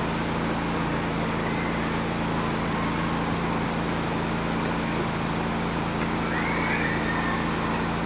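Steady low hum over a constant rushing noise, unchanging throughout.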